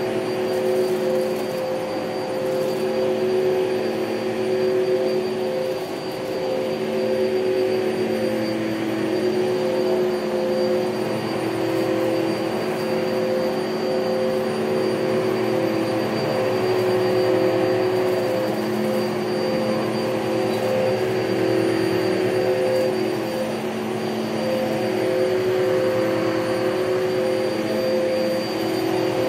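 Upright commercial vacuum cleaner running on carpet: a steady motor whine whose pitch shifts a little as it is pushed along.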